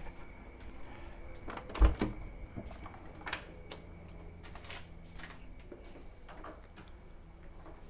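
Objects being handled: a loud thump about two seconds in, then a few lighter knocks and clicks, over a steady low hum.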